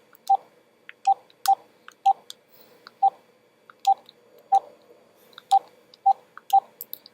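Phone keypad beeping as a phone number is dialed by hand: about ten short beeps, all at the same pitch, at an uneven tapping pace, with faint clicks of the key presses.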